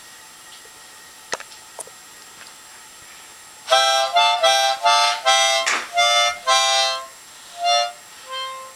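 A toddler puffing on a harmonica in short, uneven blows, sounding clusters of reedy chords: a quick run starting a few seconds in, then two separate notes near the end. A single light click sounds in the quiet about a second in.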